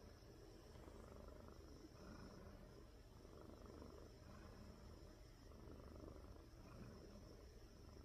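A domestic cat purring faintly while being stroked on the chin: a soft low rumble that swells and fades in slow waves.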